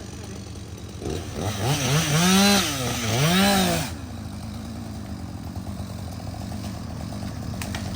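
Chainsaw revved up and down twice over about three seconds, finishing a felling cut, then let off; an engine idles steadily underneath throughout.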